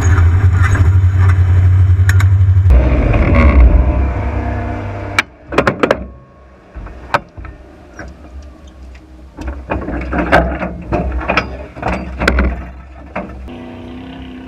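Off-road race vehicle's engine running loud, changing pitch about three seconds in and dropping away about five seconds in. Scattered sharp knocks and clatter follow, then a quieter steady engine note near the end.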